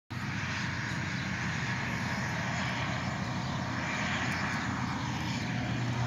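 Case IH combine harvester and its grain-cart tractor droning steadily across the field while harvesting corn, heard from a distance as an even engine hum.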